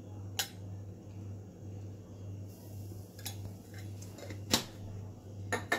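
A steel slotted spatula knocks and scrapes against an iron kadhai in four sharp clicks, the loudest about three-quarters through. Under it is a light sizzle of hot oil as turmeric froths in a tempering of cumin and curry leaves, and a steady low hum.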